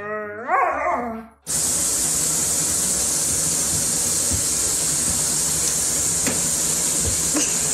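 A dog howling with a rising pitch, cut off sharply about a second and a half in by the steady hiss of water running from a tap into a foam-filled bathtub.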